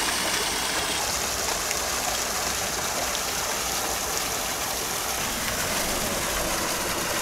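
Steady rush of splashing water in a pond crowded with sturgeon and carp churning at the surface.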